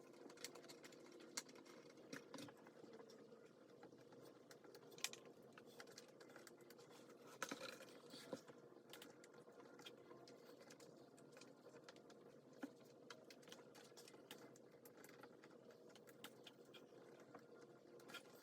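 Faint, scattered small clicks and taps in a quiet room, with a brief cluster of them about halfway through.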